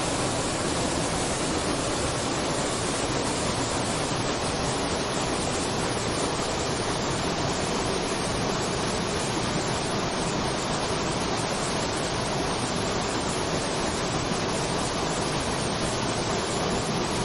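Waterfall: falling water rushing in a steady, unbroken wash of noise.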